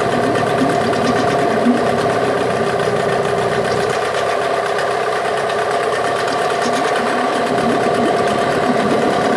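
Yamaha 8 HP two-stroke twin-cylinder outboard motor running steadily at a constant speed, its cooling water circulating and streaming from the tell-tale.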